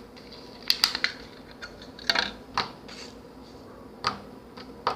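Small gloss slime being squeezed and worked by hand, giving a series of sharp, irregular clicks and pops.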